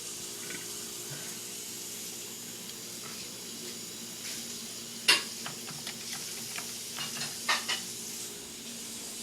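A steady hiss, with a run of sharp clicks and light knocks from about halfway in, the first one the loudest and two more strong ones near the end.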